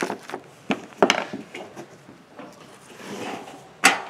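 Hand-fitted steel nuts and a galvanised steel dish bracket clinking: a few scattered small metal clicks, with the sharpest one near the end.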